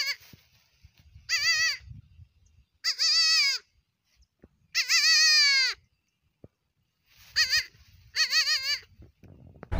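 Young goat kid bleating repeatedly, about six quavering bleats. The longest, about a second, comes a little past the middle and slides down in pitch at its end.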